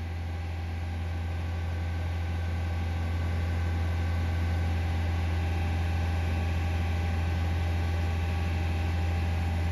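Toyota Sienna hybrid's 2.5-litre four-cylinder engine held at its governed rev limit under full throttle in maintenance mode, a steady drone heard from inside the cabin that rises slightly in loudness over the first few seconds. This high-rpm run is part of bleeding air from the freshly refilled cooling system.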